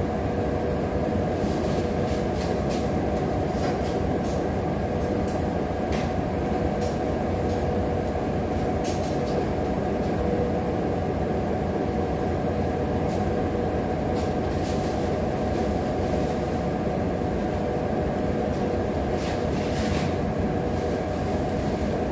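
Steady mechanical room hum, unchanging throughout, with a few constant whining tones in it, and scattered light clicks of chopsticks and a plastic spoon against a plate.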